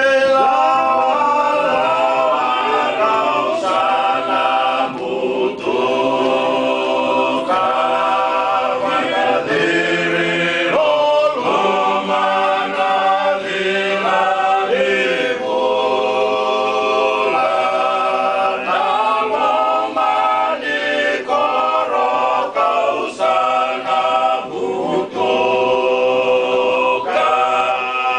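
Four Fijian men singing unaccompanied in harmony, several voices together, in phrases a few seconds long with short breaths between.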